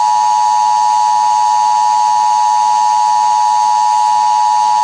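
Emergency Alert System attention signal: a steady two-tone alarm held without a break. It is the tone that announces an emergency alert, sounded before the alert message is read.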